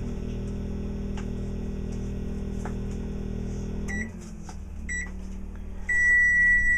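Microwave oven running with a steady hum, which cuts off about four seconds in, followed by two short beeps and then a longer, louder beep as the cooking cycle ends.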